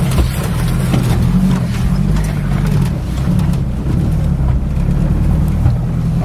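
Mitsubishi L300 4x4 van's 2.4-litre 16-valve petrol engine running steadily as the van drives, heard from inside the cab, with a few light knocks and rattles.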